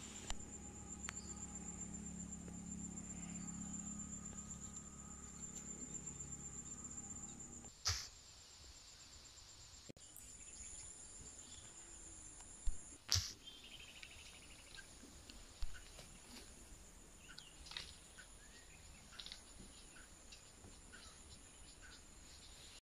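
Insects droning with a steady high tone, with a low hum under it for the first eight seconds or so and a few sharp clicks around eight and thirteen seconds in.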